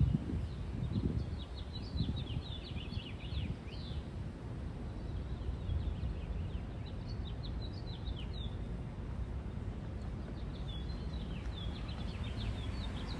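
Small birds chirping in quick, rapid runs of short notes, coming in three spells, over a steady low outdoor rumble.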